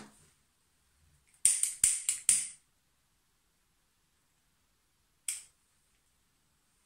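Someone striking a light to light a tin candle: four quick, sharp strikes about a second and a half in, then one more a few seconds later.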